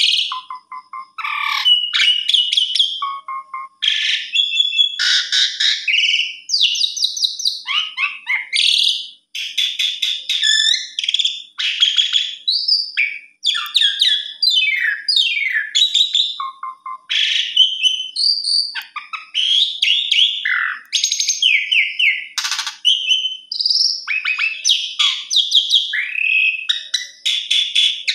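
Pied starling (jalak suren) singing a long, fast, varied song of whistles, trills and rough chattering notes, with hardly a pause.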